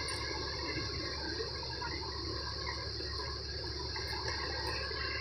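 Swollen, fast-flowing floodwater of a river rushing steadily past, a continuous even rush of water.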